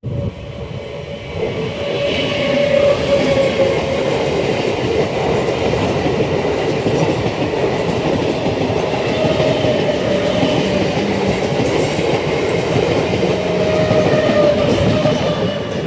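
A train running through at high speed, its wheels on the rails making a loud, steady rumble with a ringing tone over it. The sound builds over the first couple of seconds, holds, and cuts off suddenly at the end.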